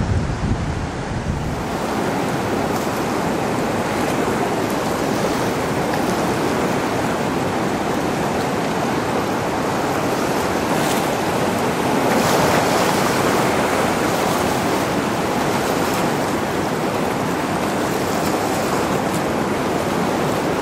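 Ocean surf breaking and washing in, a steady rushing that swells a little about halfway through. Wind buffets the microphone with a low rumble for the first second or so.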